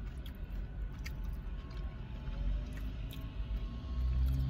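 Low steady rumble of a car cabin with scattered faint clicks and rustles of eating and handling food: a plastic spoon, a paper-wrapped sushi burrito, and chewing.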